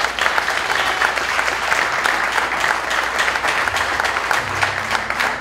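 Church congregation applauding, many hands clapping steadily.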